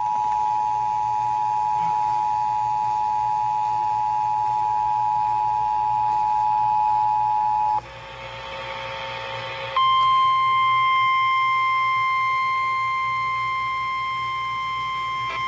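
Emergency Alert System two-tone attention signal, a steady dual beep that holds for about eight seconds and cuts off. After a brief hissy break, the NOAA Weather Radio single-tone warning alarm begins and holds steady, marking a tornado warning.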